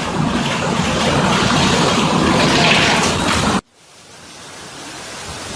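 Loud steady rushing noise that cuts off abruptly about three and a half seconds in, followed by a quieter hiss that swells back up.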